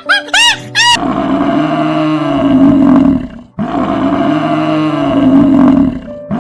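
Tiger roaring twice, each roar long and loud, with a brief break between them. A few quick rising-and-falling tones come just before the first roar.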